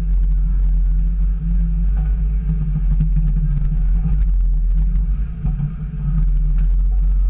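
Jeep Wrangler TJ crawling slowly along a rocky trail: a steady low engine rumble with a few scattered light clicks and knocks.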